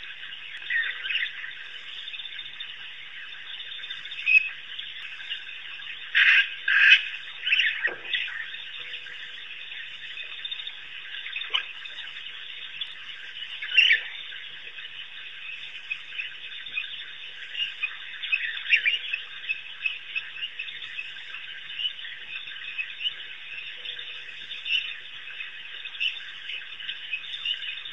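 A dense, steady chorus of calling frogs, with several short, louder calls standing out above it, two of them close together about six seconds in.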